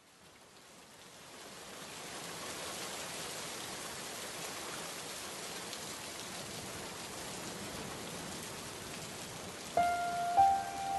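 Steady rain falling, fading in over the first two seconds. About ten seconds in, music begins with a few held notes over the rain.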